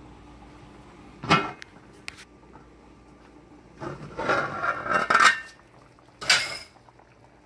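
A lid being handled on a large metal stew pot: a knock about a second in, then clattering and scraping metal with a ringing tone as the lid comes off, and another short clatter near the end.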